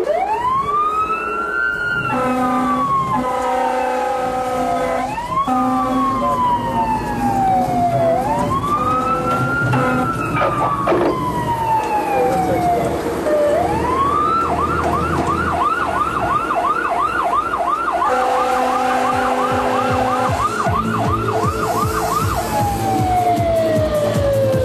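Fire engine siren: three long wails that rise quickly and fall slowly, then a fast yelp for about seven seconds, then one last falling wail. A steady chord-like tone sounds over it three times.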